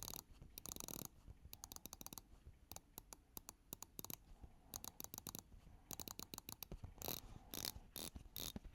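Seiko SPB079 dive watch bezel turned by hand: faint runs of ratcheting clicks with short pauses between turns, the dampened Seiko click.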